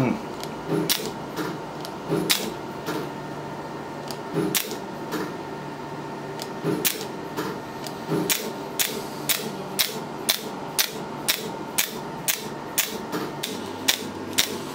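Candela GentleMax Pro hair-removal laser firing pulses as it works along the neck: sharp clicks, a few spaced out at first and then a steady run of about two a second, over a faint steady tone.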